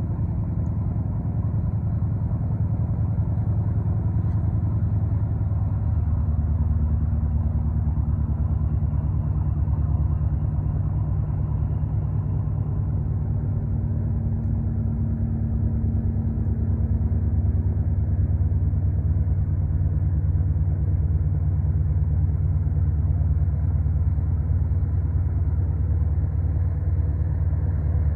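River cargo ship's engine running with a steady low drone, deepening slightly about six seconds in.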